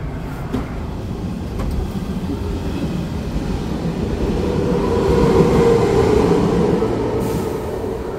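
Electric subway train rumbling along the tracks, heard from the platform edge; the noise swells to a peak about five seconds in and then eases off.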